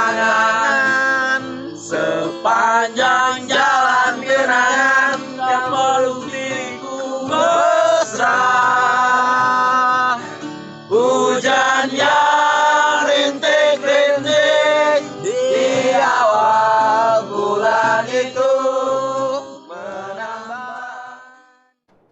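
Music: a man singing a slow Indonesian pop song with plucked guitar accompaniment, fading out near the end.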